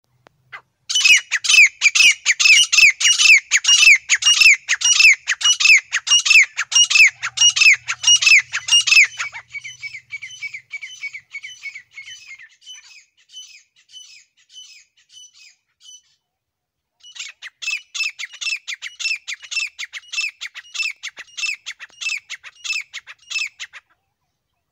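Grey francolin calling: a fast run of loud, harsh, repeated calls, about three a second. The calls grow fainter for a few seconds, break off briefly around the middle, then start again loud.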